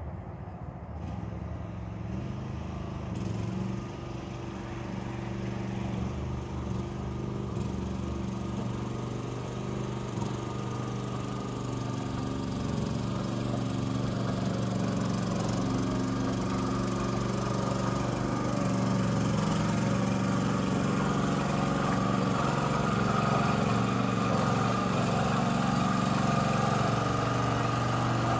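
Small engine of a FORT Alien HY 5.2 tracked mini dumper running steadily as the machine drives along, growing louder as it comes closer.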